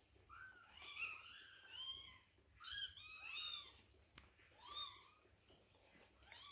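Young Maine Coon kittens mewing: a run of short, high-pitched mews, each arching up and down in pitch, several in quick succession over the first five seconds.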